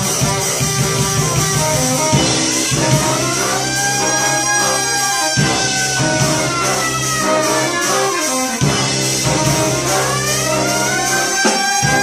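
A live brass street band playing jazzy music: saxophone, sousaphone bass notes, a brass horn and a drum kit. Twice a long horn line slides up and then falls away over held low notes.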